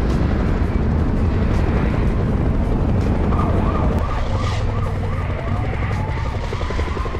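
Harley-Davidson motorcycle engine and wind noise at road speed. The engine's rumble drops off about four seconds in as the bike slows. From about three seconds in, music with a repeating chirping figure and a sliding tone comes in over it.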